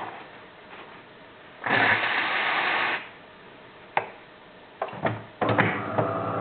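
DeLonghi Magnifica ESAM 4200 coffee machine giving a short, even rush of noise lasting just over a second, followed by a few sharp clicks and knocks. Music with sustained notes starts near the end.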